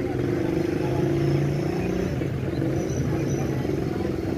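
A vehicle engine running steadily, loudest about a second in, with voices in the background.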